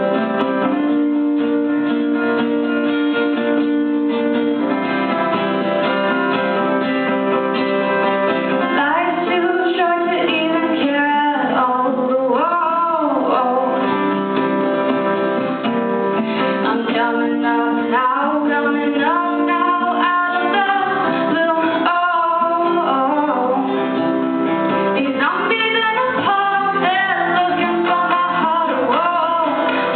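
Guitar playing held chords, joined about nine seconds in by a voice singing the melody over it.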